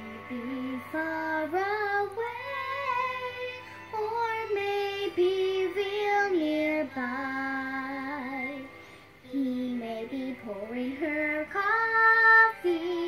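A young girl singing a slow melody in long held notes, loudest on a high held note near the end.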